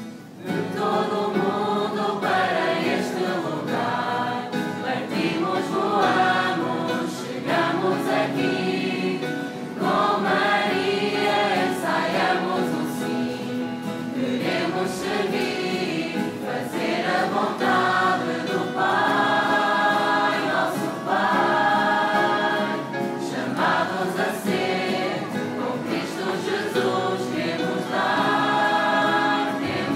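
A choir singing a hymn in sustained sung phrases, starting about half a second in.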